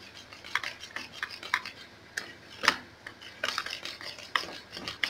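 Wire balloon whisk beating flour into blended ripe plantain in a bowl: irregular clicks and scrapes of the wires against the bowl, with a soft swishing through the thick batter.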